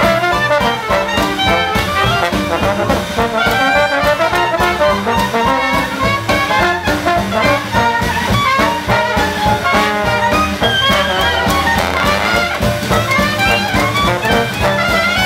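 New Orleans-style Dixieland jazz band playing live, with trumpet, trombone and clarinet improvising together over banjo, string bass and drums. This is the full-ensemble closing chorus of the tune.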